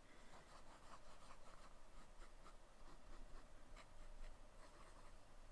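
Faint scratching of a Franklin Christoph Model 46 fountain pen's medium nib writing on paper, in short, irregular strokes.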